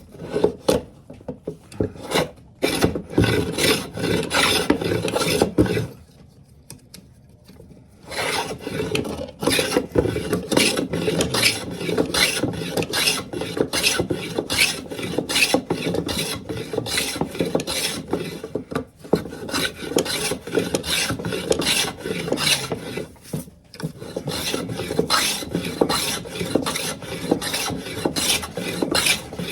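Wood being abraded by hand: fast, even back-and-forth scraping strokes over the repaired wooden table leg as it is smoothed down. The strokes stop for about two seconds around six seconds in, and break off briefly again near the end.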